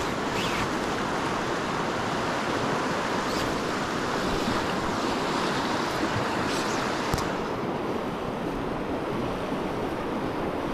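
Steady rushing of a fast river running over riffles and small rapids. A few faint scrapes and one sharp click, about seven seconds in, sound over the rush.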